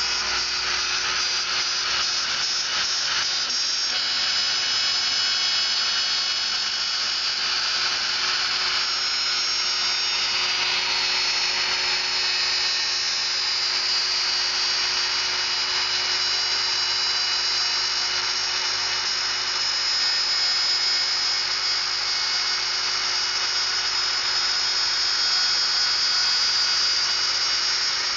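CNC wood router's spindle running, a steady high-pitched whine with a noisy cutting hiss underneath.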